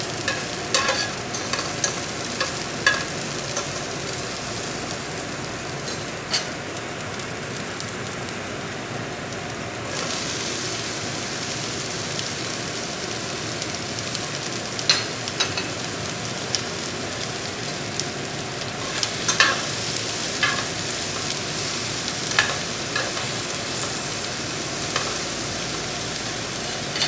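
Vegetables sizzling in hot sesame oil in a nonstick frying pan as a spatula stir-fries them, with sharp scrapes and taps of the spatula against the pan. The sizzle gets louder about ten seconds in, as the pan fills with cucumber strips.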